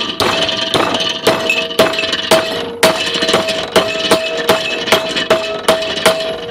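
A two-pound hammer striking a 1/8-inch aluminum bar clamped in a bench vise, about two blows a second, each with a metallic ring, bending the bar's end over flat.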